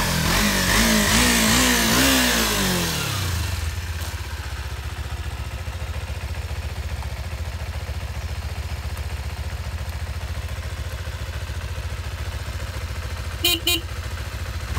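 Kawasaki KLE 250 parallel-twin engine blipped several times, the revs rising and falling about four times, then settling into a steady idle. Two short beeps sound near the end.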